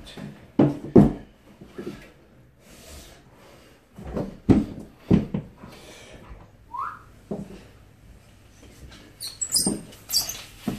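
Dull thumps as a paraplegic man drops down a staircase on his seat one step at a time, holding both handrails; there are two thumps about a second in, two more around the middle and another near the end. A dog gives a short rising whine in the middle, and there are brushing scrapes near the end.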